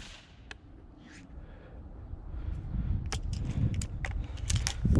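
Footsteps pushing through dry grass and brush, with twigs snapping and crackling, louder from about two and a half seconds in.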